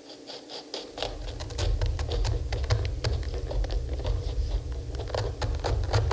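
Serrated knife blades sawing into pomegranate rinds: a quick, crackling run of clicks and scrapes from two cuts at once. From about a second in, a steady low rumble sits underneath.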